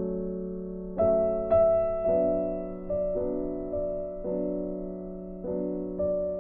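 Slow, gentle background piano music: held chords with new notes struck every second or so, each fading before the next.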